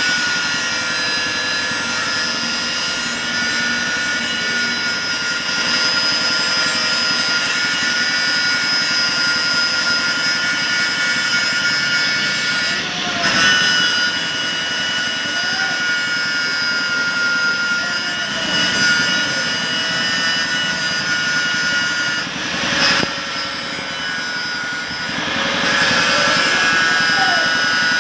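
Electric angle grinder with an abrasive disc grinding down the joint of a steel saw blade, a steady high whine of the disc on metal that dips briefly a few times as the pressure changes.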